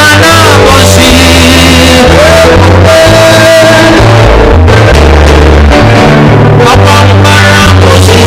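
Loud live church worship music from a band with a heavy, moving bass line and sustained keyboard-like tones, with singing over it.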